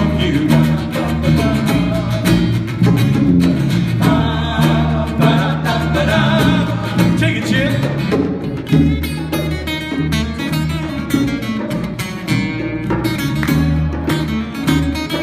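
Live rock band playing an instrumental passage: guitar over a steady bass line and drums.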